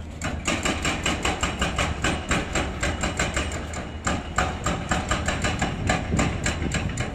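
Excavator-mounted hydraulic breaker hammering concrete in rapid, even blows, about five or six a second, over the low hum of the excavator's diesel engine.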